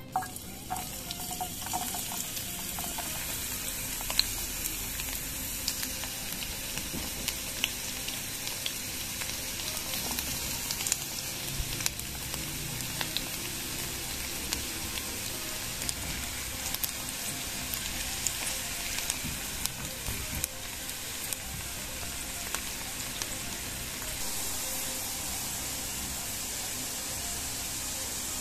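Diced onion frying in hot oil in a pan: a steady sizzle with many scattered crackles and pops.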